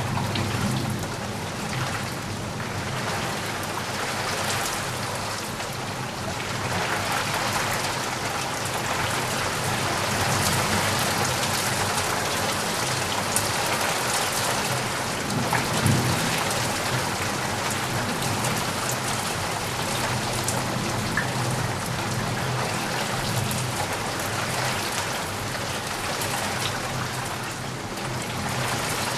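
Steady rain falling hard, a dense even hiss of drops, with a low rumble of thunder swelling briefly about halfway through.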